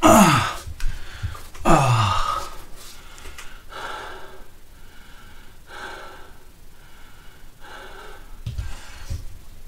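A man gasping and breathing hard with the strain of doing push-ups. Two loud strained gasps that fall in pitch come at the start, then heavy breaths about once a second, and a couple of dull thumps near the end.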